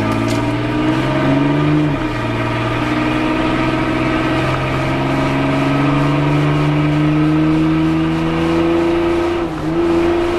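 Mitsubishi Montero's 3.0-litre V6 engine pulling under acceleration. Its pitch climbs slowly, then drops at two gear shifts, about two seconds in and near the end.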